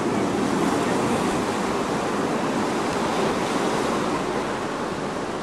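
Ocean surf breaking on the shore: a steady rush of waves that swells a little about half a second in and eases slightly near the end.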